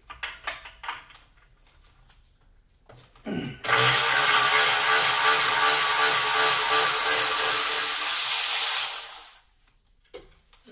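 Handheld power tool running steadily for about five seconds, starting a few seconds in and stopping shortly before the end. Before it come a few light clicks and knocks of hand tools.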